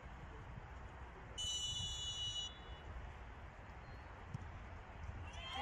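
A referee's whistle blown once, a steady high tone lasting about a second, just before a penalty kick, over a faint low rumble.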